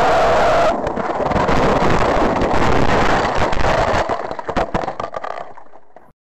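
Car tyres squealing in a skid for about the first second, then the car running off the road through trees and brush: a loud rough rumble full of cracks and knocks that dies away and cuts off shortly before the end.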